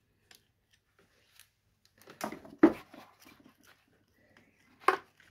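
Scattered clicks, knocks and a short rattle as a Piaggio Sfera NSL scooter's carburettor is worked loose from its intake boot. The loudest knock comes about two and a half seconds in, and another sharp one comes near the end.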